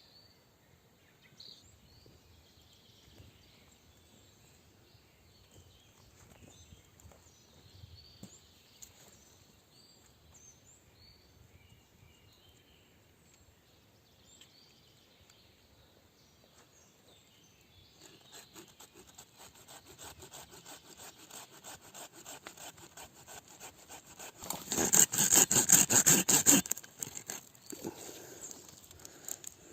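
A hand saw cutting wood in quick, even strokes that start about two-thirds of the way through and get much louder for a couple of seconds near the end. Faint birdsong comes before it.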